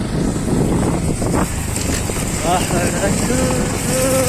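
Motorcycle engine and wind noise on the microphone. From about two and a half seconds in, a voice hums a wavering tune over it, holding long steady notes.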